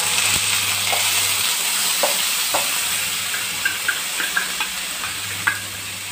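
Onion, ginger and garlic paste sizzling as it hits hot oil tempered with mustard seeds, cumin and curry leaves in a nonstick pan, easing slowly as it settles. A few light clicks of a small steel bowl scraping the paste against the pan.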